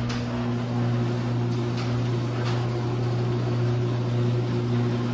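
Linear LDO50 half-horsepower chain-drive garage door opener running as it raises the door, with a loud steady buzz. The buzz is typical of this model rather than a fault.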